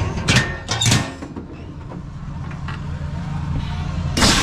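Apple cannon firing: a short, loud blast about four seconds in, after two sharp knocks in the first second, over a steady low mechanical hum.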